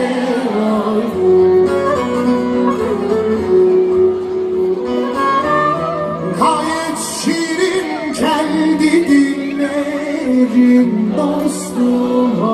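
Live band playing a Turkish folk-pop song, with singing over guitar and strings.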